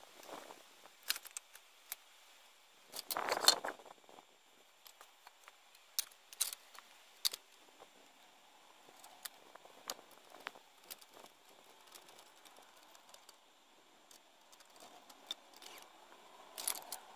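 Scattered light clicks and knocks of objects being handled, with a louder scraping clatter about three seconds in.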